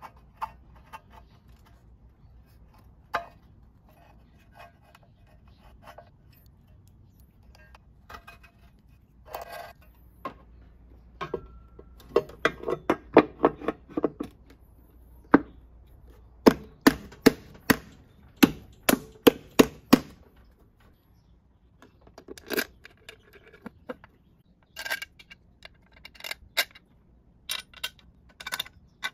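Hand work on an aluminium scooter CVT cover: a gasket scraper clicking against the cover, then a dense run of sharp knocks and taps as the cover is pressed onto the engine case, and light metal clinks as its small bolts are set in by hand near the end.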